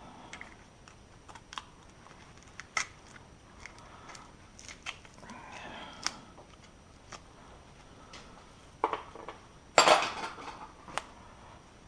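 Scattered light metallic clinks and clicks of tools and car parts being handled, with a louder clatter a little before ten seconds in.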